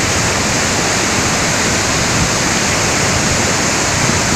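Waterfall rushing: a loud, steady roar of falling water.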